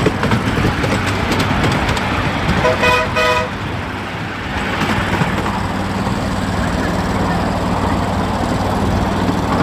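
Diesel miniature ride-on train running with a steady low engine hum and some clatter. It sounds a short two-tone horn toot about three seconds in.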